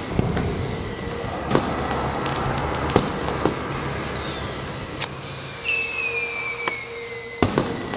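Fireworks going off: scattered sharp bangs over a low rumble, and from about four seconds in, long falling whistles.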